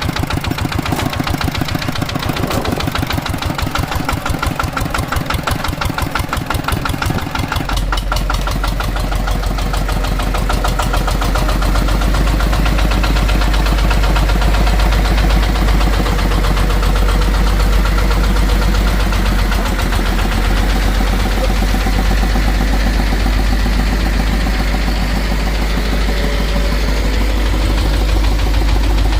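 Hand tractor's single-cylinder diesel engine running with a rapid, even knock of firing strokes. About eight seconds in a deep low rumble joins and the engine grows a little louder.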